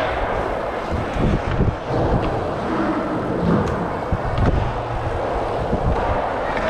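Dirt jump bike tyres rolling fast over smooth concrete, with wind rushing over the helmet-mounted action-camera microphone and a few low thumps as the bike rolls through the transitions.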